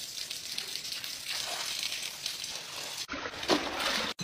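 Water spraying from a hose onto tiled pool steps, a steady hiss and splash. After a cut about three seconds in, a louder spray from a pressure-washer gun hits the tiles.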